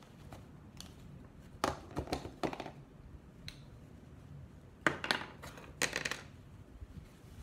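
A pencil being sharpened: two bursts of short crunching scrapes, about a second and a half in and again about five seconds in.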